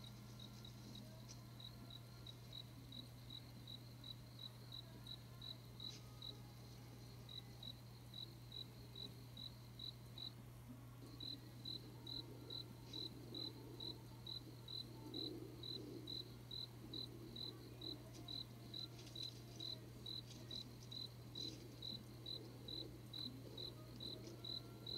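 A cricket chirping steadily, about two short chirps a second, with a brief pause about ten seconds in, over a low steady hum.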